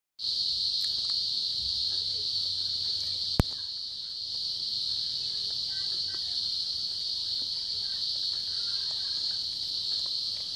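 Steady high-pitched drone of insects, with one sharp click about three and a half seconds in.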